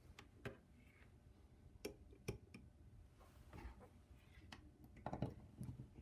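Faint, scattered clicks and knocks of a small coil immersion heater being handled: its metal coil and plastic handle set into a glass beaker of water and its cord moved about on a wooden countertop, with the loudest knocks about five seconds in.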